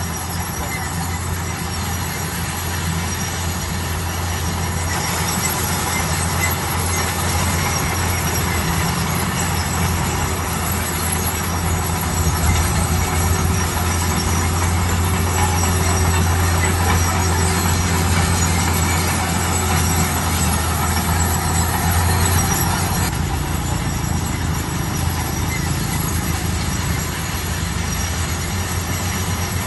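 Bulldozer working: a steady low diesel drone that swells louder for most of the middle and eases near the end, with a high metallic squeal from the crawler tracks.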